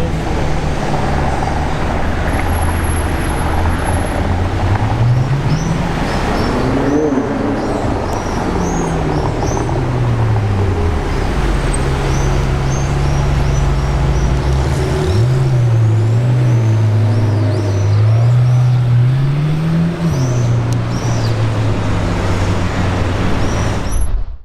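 McLaren 720S twin-turbo V8 revving up and back down, its pitch climbing about five seconds in and falling, then climbing and falling again about fifteen to twenty seconds in, with high chirps over it. The sound cuts off suddenly at the end.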